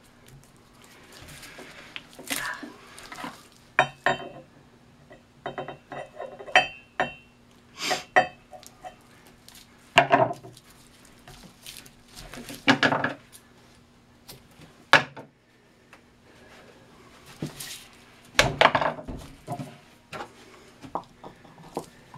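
Hand-spiking a paper cylinder firework shell: the spiking string is pulled taut and worked over the casing, with irregular short clinks, taps and scrapes, some briefly ringing. A low steady hum runs underneath.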